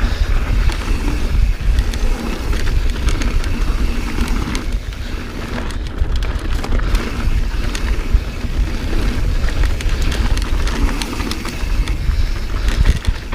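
A mountain bike rolling fast down a dirt trail, with heavy wind buffeting the chest-mounted camera's microphone as a steady low rumble. Scattered clicks and rattles come from the bike and the tyres over the dirt.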